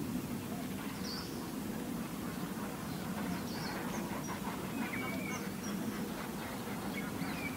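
Wetland bird sounds: a steady low background with busy, duck-like calling and scattered short, high chirps and whistles from birds.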